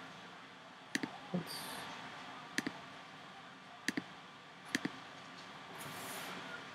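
Sharp clicks of a computer pointer button clicking an on-screen button, about five times spread over the first five seconds, most as quick doubled clicks, over faint room hiss.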